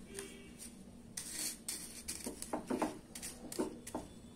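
Wooden spatula stirring vermicelli in a nonstick pan of hot water, with a series of short scrapes and knocks against the pan beginning about a second in.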